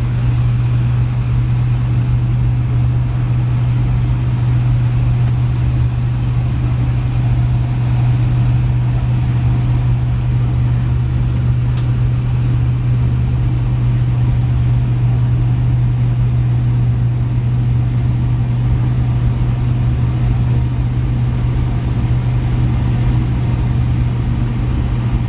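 Steady low drone of engine and airflow noise inside an airliner's passenger cabin, unchanging throughout.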